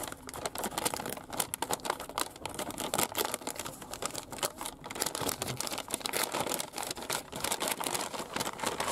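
Brown paper bag rustling and crinkling as it is handled and opened, a dense run of crackles.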